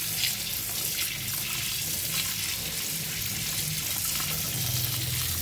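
Tap water running steadily and splashing onto mangoes and into a water-filled steel pot in a sink as the fruit is washed by hand.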